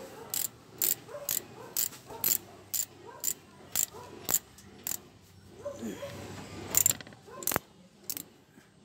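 Ratchet wrench clicking as its handle is swung back and forth on a bolt, a sharp click burst about twice a second. The clicking thins out after about five seconds, with a few last clicks near the end.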